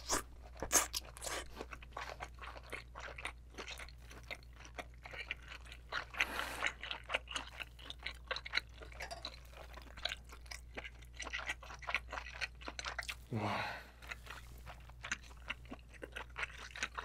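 Close-miked chewing of a large spicy braised abalone held in one mouthful: steady, irregular wet smacks and clicks of the firm, chewy flesh.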